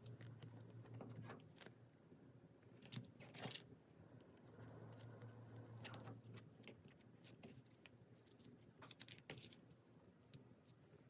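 Packing materials handled by hand: soft crinkly rustles and scattered small taps and clicks, the loudest a few seconds in, over a low steady hum.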